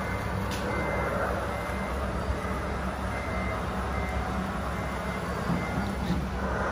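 Radio-controlled scale truck running, with a high beep repeating like a truck's reversing alarm over a steady low hum.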